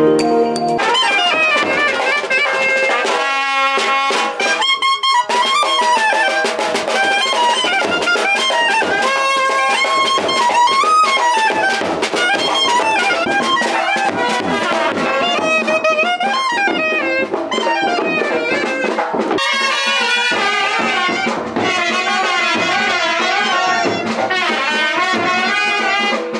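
Music: a wind-instrument melody with bending, wavering notes over drums.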